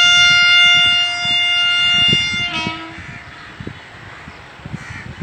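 WAP-7 electric locomotive's dual-tone horn sounding one long blast of about two and a half seconds. It switches briefly to a different pitch as it stops, followed by the low rumble and knocking of the train moving off.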